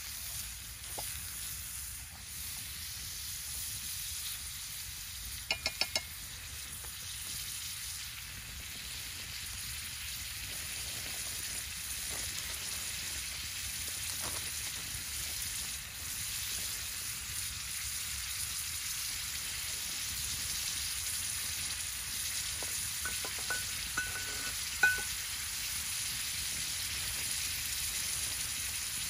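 Ground beef frying in a cast-iron skillet over a wood fire: a steady sizzling hiss. A quick run of sharp clicks comes about six seconds in, and a few more short clicks come near the end.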